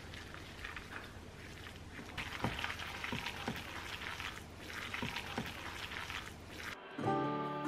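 Wet squishing and slapping of minced-meat dumpling filling with chopped chives, egg and sauce being stirred in a bowl, in repeated strokes. Near the end it stops and chiming music comes in.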